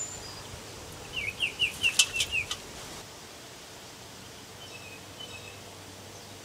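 A bird singing a quick phrase of about seven short falling notes a second or so in, with a couple of sharp ticks among them, then a few faint chirps later over steady outdoor background noise.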